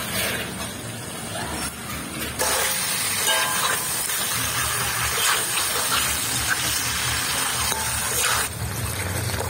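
Fried katla fish-head pieces sizzling in hot oil and masala in an iron karahi as a metal spatula stirs them. The loud sizzle starts about two and a half seconds in and cuts off suddenly near the end.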